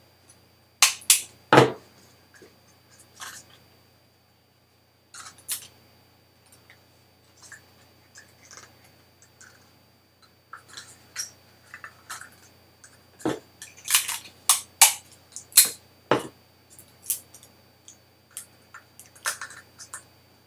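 Handling noise of a cut balloon being stretched over a small plastic cup: scattered sharp clicks, crinkles and snaps of rubber and plastic, with a short pause about four seconds in and a cluster of louder snaps later on.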